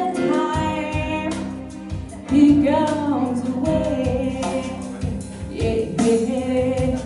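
A woman singing live into a microphone, holding and bending long notes, accompanied by chords on a stage keyboard.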